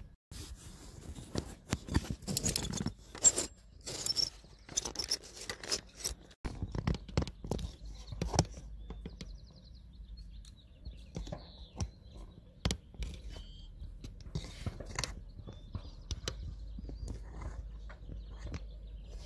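Rustling, bumps and knocks of a phone being handled and moved, dense in the first six seconds. After that a steady low rumble runs on, with scattered knocks.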